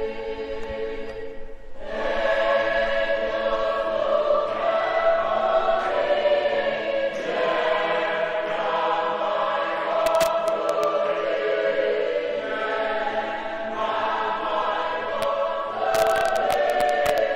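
A choir singing in harmony, many voices holding long notes; the singing comes in louder about two seconds in. A few sharp clicks near the end.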